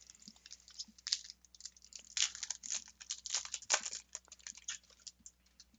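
Crinkling and rustling of a foil trading-card booster pack wrapper being handled, an irregular run of crackles.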